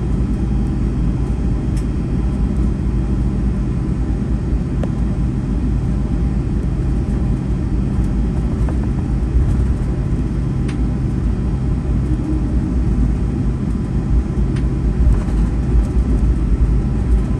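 Steady low rumble of a Boeing 757-200 heard from inside its cabin as it rolls on the ground after landing, with a few light clicks and rattles.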